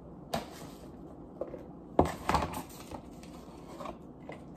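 A few sharp knocks and light rustles as a cardboard takeout box is set down on a stone countertop and handled beside a paper plate; the loudest knock comes about two seconds in, with another just after.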